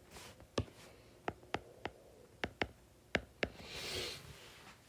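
Pen writing on a hard surface: about eight sharp, separate taps and clicks, then a short scratchy stroke near the end.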